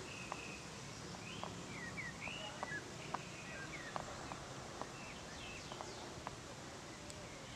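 Wild birds calling in woodland: short whistled slurred notes, with scattered sharp ticks, over steady outdoor background noise.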